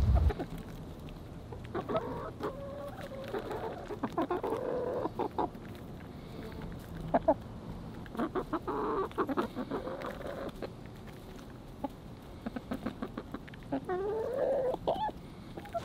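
Backyard hens clucking in short, repeated calls while they feed, with a longer rising call near the end.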